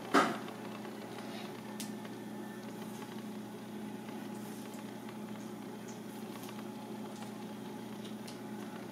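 Knife slicing raw squid on a plastic cutting board: one sharp knock just after the start and a few faint taps and clicks. Under it runs the steady hum of kitchen ventilation.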